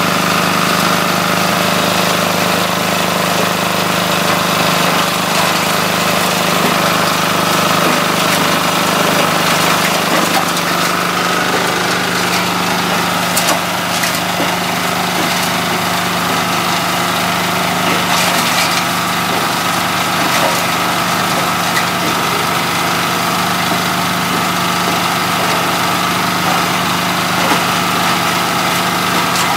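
Small stationary engine running a coconut husk shredder at a steady speed, with a steady high whine over the engine hum. The engine note shifts slightly about eleven seconds in, and a few faint ticks come near the middle.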